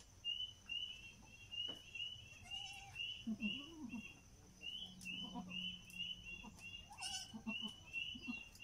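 Goat doe giving a few low, soft bleats to her newborn kids, behind a rapid high chirping that repeats three or four times a second.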